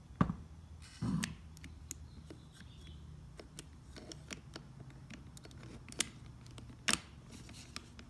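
Small metal clicks and scrapes of a Honda ignition lock cylinder being handled and slid back into its steering-lock housing, with a short scuff about a second in and a few sharper clicks, the loudest about a second before the end.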